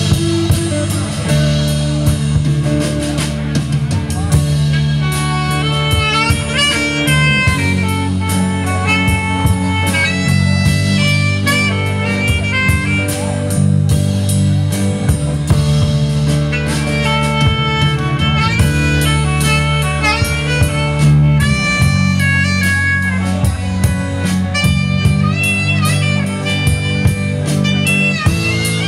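Live band playing an instrumental break: electric guitars, bass and drum kit, with a bending lead melody line over a steady beat.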